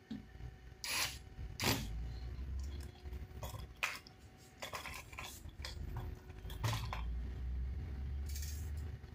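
Small hard parts of a plastic RC car chassis being handled during disassembly: a run of separate sharp clicks, clinks and knocks, some of small metal parts, over a low rumble of handling.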